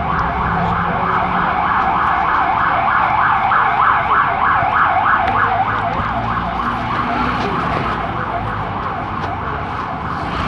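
Emergency vehicle siren in fast yelp mode, its pitch swooping up and down about three times a second, fading away in the second half as the vehicle passes.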